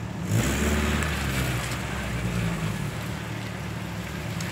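Engine of a lifted, solid-axle-swapped Chevy Tracker running as it crawls along a muddy trail. The engine note rises briefly about a third of a second in, then settles back to a steady low running sound.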